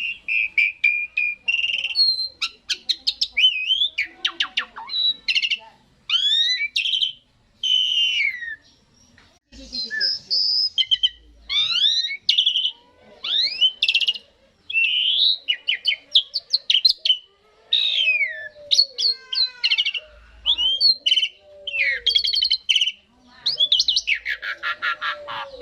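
Asian pied starling (jalak suren) singing a long, varied song of whistles, sliding notes and harsh chattering rattles in quick phrases, with short pauses between them and a dense rattle near the end.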